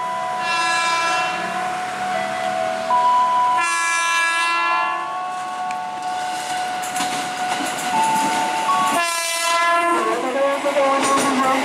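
KRL Commuter Line electric train approaching the platform and sounding its horn three times: blasts right at the start, about four seconds in and about nine seconds in. Steady tones run between the blasts, and the wheels rumble and clatter near the end as the train draws alongside.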